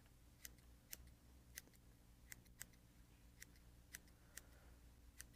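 Small fine-point scissors snipping the macrame-yarn body of a streamer fly, about ten faint, short cuts at an uneven pace.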